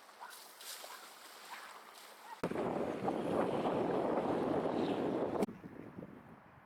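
Wind buffeting the microphone: a loud rushing noise that starts abruptly about two and a half seconds in and cuts off suddenly about three seconds later, over a faint, steady outdoor background.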